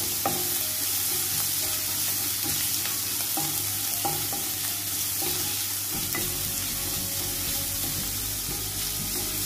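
Chopped ginger, garlic, green chillies and curry leaves sizzling steadily in hot coconut oil in a nonstick kadai while a spatula stirs them, with a few light scrapes against the pan. They are being sautéed until their raw smell cooks off.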